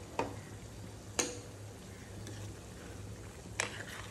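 Mutton curry simmering in an open clay pot while a ladle and utensils knock against the pot three times, the knock about a second in the loudest, over a steady low hum.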